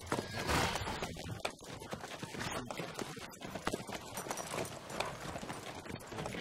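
Palio horses' hooves clopping irregularly on the packed-earth track as they walk, over the steady noise of a large crowd.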